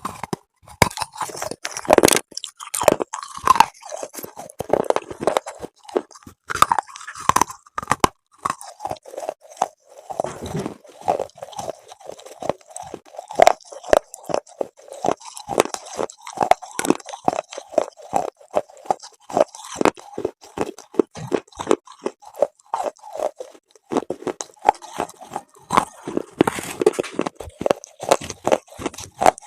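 A person biting and chewing something hard and brittle close to the microphone, with dense, sharp crunches throughout.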